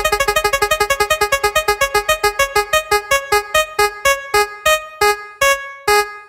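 Spin-wheel ticking sound effect: a fast run of short plinking keyboard-like notes that slows steadily, spacing out to about two a second near the end as the wheel comes to rest.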